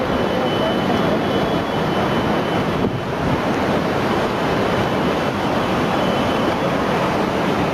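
Steady roar of rushing floodwater, an even noisy wash that holds at one level throughout.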